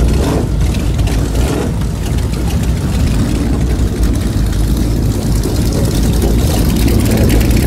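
Motorcycle engine idling, a steady low rumble.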